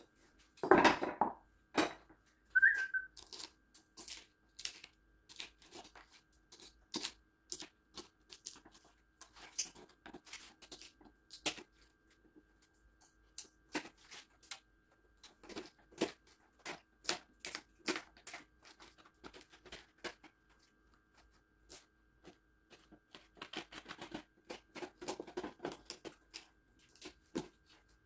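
A short blast of air with dust blowing off a wood slab, then a long run of irregular sharp taps, cracks and crunches as loose, rotten wood is picked and broken out of the slab's cracks with hand tools.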